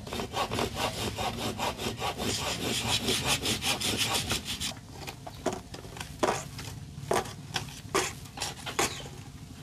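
Hand saw cutting with quick back-and-forth strokes for about four and a half seconds, then a handful of slower, separate strokes under a second apart.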